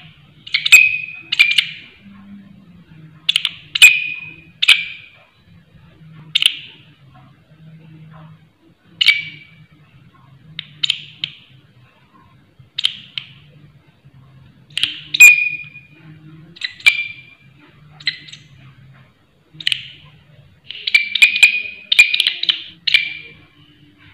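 Large green leaf-like katydid (walang kerik) calling: loud, shrill chirps about half a second long, repeated every second or two, some in pairs or threes, with a quick run of several near the end.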